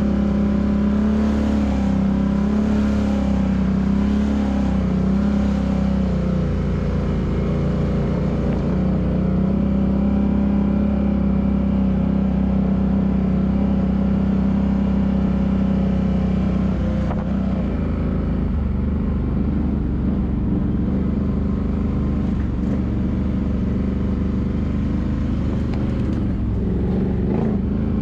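ATV engine running at a steady cruise along a dirt trail. The engine note eases off about two-thirds of the way through, then climbs again as it revs up near the end.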